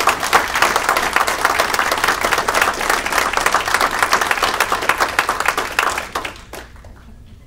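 Audience applauding: many hands clapping in a dense patter that dies away about six seconds in, with a few last claps just after.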